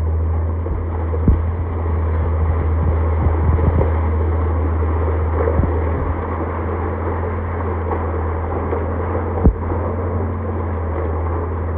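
Heavy engine running steadily with a strong low hum, with a couple of short knocks about a second in and near the end.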